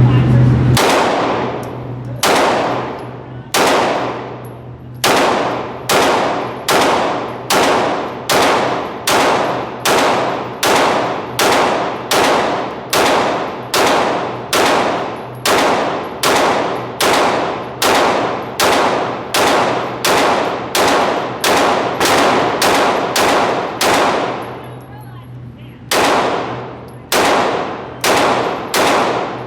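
Glock 17 9mm pistol fired shot after shot, each report echoing off the walls of an indoor range. There are about thirty shots: a few spaced out at first, then steady at roughly one a second, a pause of about two seconds near the end, and four more after it.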